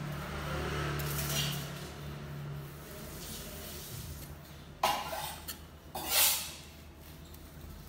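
Swedish-steel gyuto kitchen knife slicing raw beef on a wooden chopping board: soft slicing strokes, then a sharp click about five seconds in and a louder swish of the blade about a second later.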